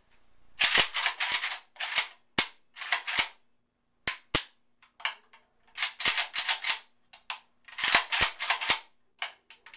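Century Arms AK-47's action worked by hand in a function check: the bolt carrier racked back and snapping forward and the safety lever clacking. The result is repeated bursts of sharp metallic clacks with short pauses between them.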